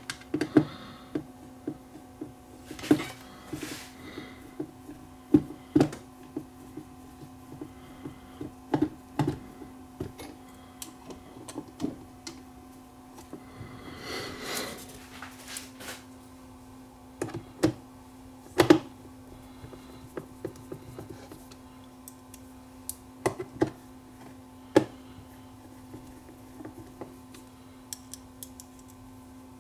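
Irregular clicks and taps of a screwdriver against the metal plates and small parts of a turntable's auto-return mechanism, over a steady low hum.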